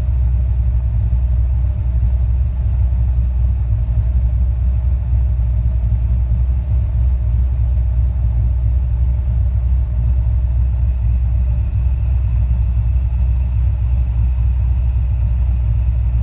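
A 600 hp performance engine with Holley Super Sniper throttle-body fuel injection idling steadily at about 900 rpm, a deep even rumble, as it warms up toward operating temperature with the throttle closed.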